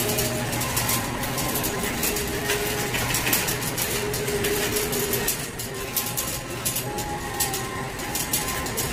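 Wire shopping cart rolling and rattling along a store aisle floor, a continuous clattering rumble.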